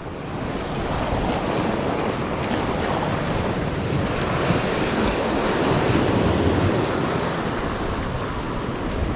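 Sea surf washing and breaking over shore rocks in a steady rush, with wind buffeting the microphone.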